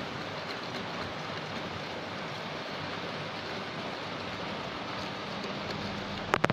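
Steady rain heard from indoors as an even hiss, with a couple of sharp clicks near the end.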